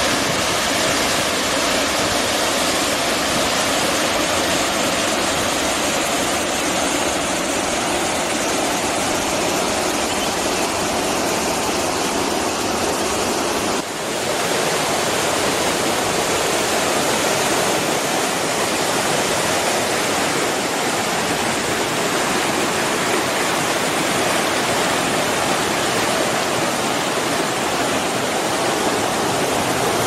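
Water rushing over a waterfall and down rocky stream rapids: a loud, steady rush, with a brief dip about halfway through.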